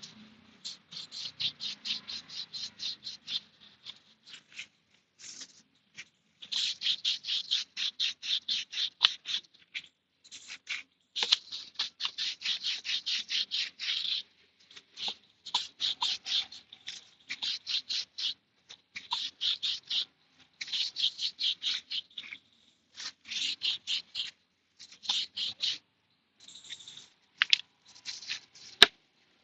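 Rapid scrubbing strokes on a motorcycle drive chain being cleaned with diesel and chain cleaner. The strokes run about five or six a second in bursts of a few seconds, with short pauses between.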